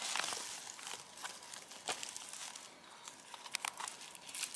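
Dry birch bark and rush stems crinkling and rustling under the hands as a rush cord is wound around a birch-bark parcel, with scattered small crackles and clicks.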